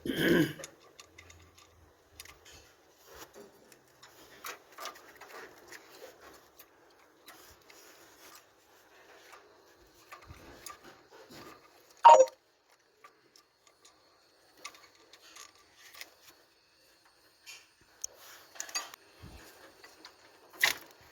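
Hand tools working on the engine: light ratchet-like clicking and rubbing in short runs while the thermostat housing bolts are tightened, with a sharp ringing metal clink about twelve seconds in and another near the end.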